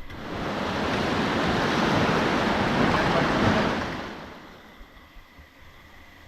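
River water rushing and splashing, swelling quickly, holding for about four seconds, then fading away.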